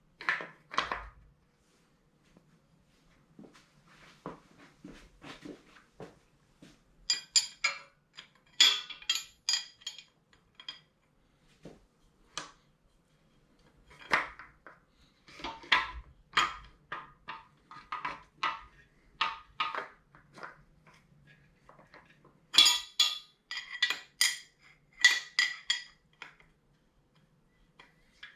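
Steel parts of a camshaft bearing removal tool clinking and ringing irregularly as they are handled and fitted into a small-block Chevy engine block, in short clusters of light metallic knocks.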